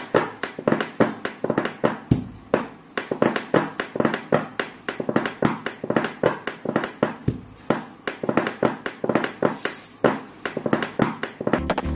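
Pen beat: pens and fingertips drummed on wooden school desks, a quick, busy rhythm of sharp taps and clicks.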